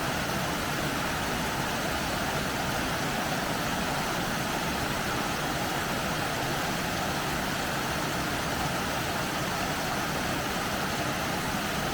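Waterfall with heavy water flow: a steady, unbroken rush of falling water.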